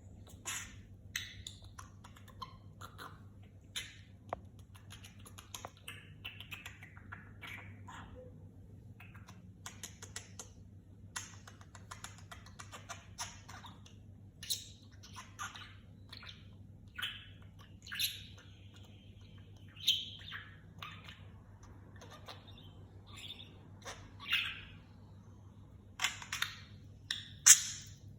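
Pet budgerigar chirping and chattering in many short calls, with a stretch of warbling, over a faint steady low hum. The loudest chirps come near the end.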